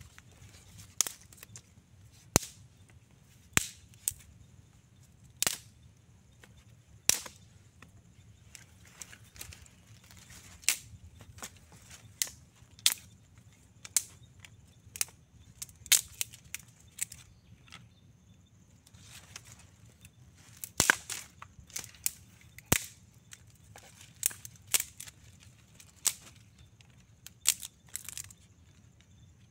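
Thin dry twigs being snapped by hand, one after another: sharp cracks at irregular intervals, about one or two a second, with a tighter cluster a little past the middle.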